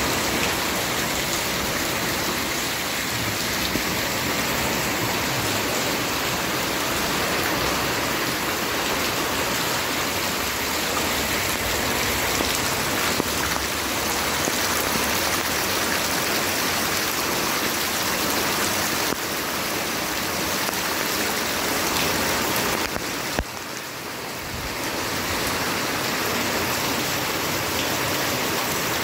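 Heavy rain falling steadily, with rainwater running and splashing over the ground. It turns briefly quieter a little past three-quarters of the way through.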